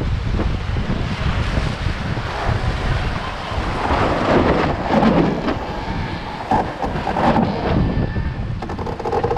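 Wind buffeting the microphone and water rushing along the hull of a sailing yacht under way, with a louder wash of water about four to five seconds in. Music comes in near the end.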